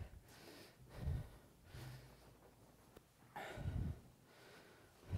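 Faint breaths and three soft low thumps close to a microphone, about a second in, about three and a half seconds in, and near the end.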